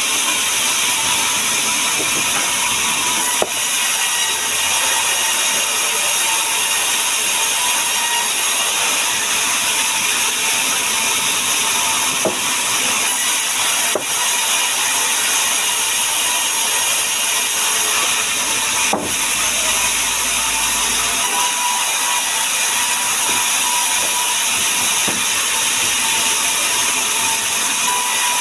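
Woodworking power machine running steadily through wood, an even noise with a faint steady whine, broken by a few scattered sharp clicks.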